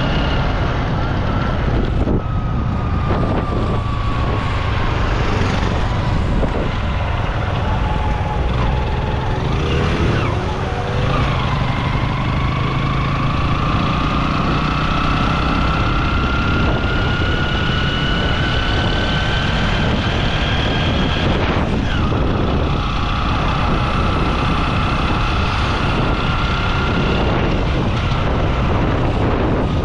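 An engine running over a heavy low rumble, its pitch climbing slowly and dropping sharply twice.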